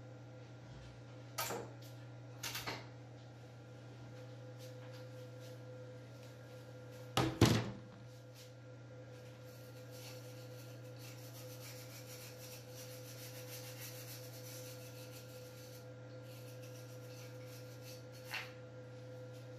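Steady low mechanical hum under a few sharp knocks as a carved wooden piece is handled, with the loudest, a heavy thump, about seven seconds in.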